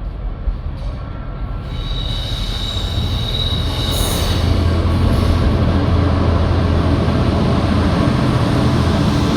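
A train approaching and running through, its rumble growing louder about two seconds in and then holding, with a high steady ringing tone over the first few seconds of the rise.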